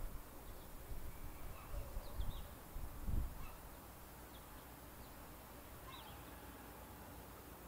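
Scattered small bird chirps and short calls, faint, with low gusts of wind on the microphone during the first three seconds or so.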